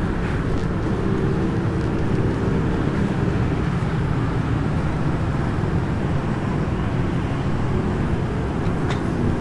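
Steady road-traffic noise from passing vehicles, with a steady engine hum in the first few seconds.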